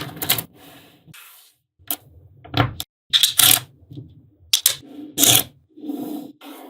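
Small magnetic balls clicking and clattering as they snap together and are handled. The clicks are sharp and irregular, with a few short rattling bursts.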